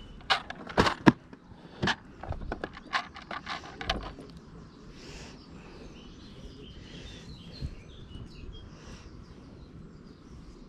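A quick series of sharp clicks and knocks over the first four seconds, from hands handling gear close to the microphone. After that, birds chirp faintly in the background.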